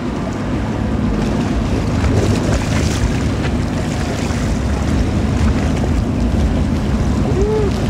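Fast passenger ferry Horizon 10 passing close by: a steady low rumble and the rush of its bow wash through the water, with wind on the microphone.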